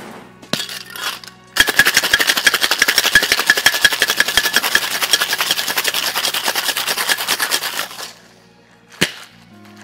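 Ice shaken hard in a two-piece metal cocktail shaker: a fast, even rattle of ice against the tins for about six seconds, after a few knocks as the tins are closed. A single sharp knock follows near the end.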